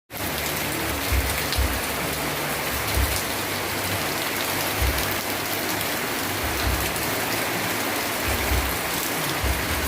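Steady rain falling, a dense hiss with fine drop ticks, broken by occasional low thuds.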